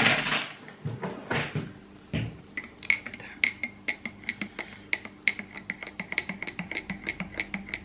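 A drawer knocks shut at the start. Then a metal spoon stirs coffee in a glass mug, clinking fast against the glass, several times a second, each clink ringing briefly.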